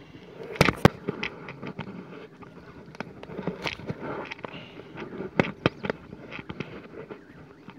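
A run of sharp, irregular clicks and knocks, the two loudest just over half a second in, over a faint steady low hum.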